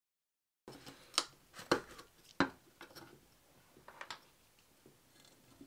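A small screwdriver clicking and scraping against the corroded metal frame and parts of a G10 air pistol as it is pried apart, with a few sharp clicks a second or so apart and fainter ticks between them. It begins after a moment of dead silence.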